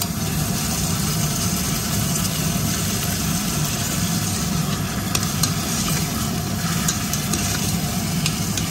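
Canned sardines in tomato sauce sizzling steadily as they hit a hot stainless-steel pot of frying chopped onions, over a steady low hum. A spoon stirs the pot, with a few light clicks against the metal near the end.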